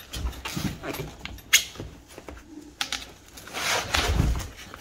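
Cardboard and foam packaging rustling and scraping as hands pull at it inside a bike box, with a sharp snap about a second and a half in and a longer, louder rustle near the end.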